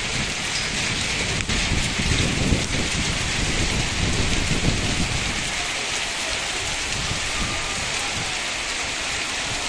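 Hail and heavy rain falling together, a dense steady hiss of stones and drops hitting the ground, with an uneven low rumble underneath.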